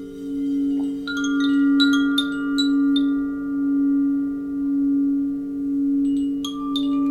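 Sound-bath instruments: a sustained humming tone that swells and fades about once a second, with a run of bright chime strikes about a second in and another starting near the end.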